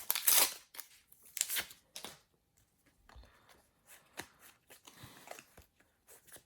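Foil packet and football trading cards handled by hand: a string of short crinkles, snaps and card slides, loudest in the first two seconds, as a packet is opened and the cards are flicked through.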